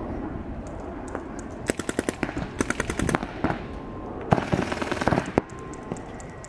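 Paintball markers firing rapid strings of shots, about a dozen a second, in three bursts, the last the loudest.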